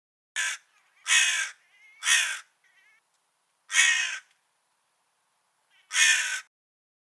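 Crow cawing: five caws, the first one short, with the gaps between them widening toward the end. A few faint, softer notes come between the second and third caws and just after the third.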